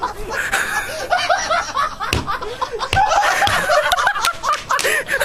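Several people laughing in overlapping fits, with a few sharp smacks mixed in.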